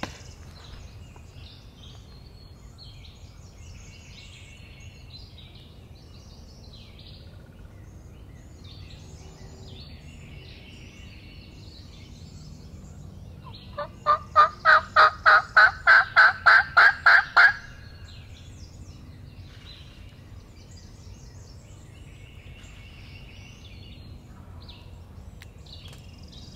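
A loud bird call about halfway through: a run of about a dozen evenly spaced notes, roughly four a second, rising slightly in pitch and lasting nearly four seconds, over faint songbird chatter.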